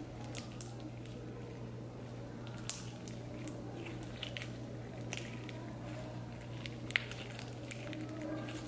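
Slime with sprinkles mixed in being squeezed and worked by hand: scattered small wet clicks and pops over a steady low hum.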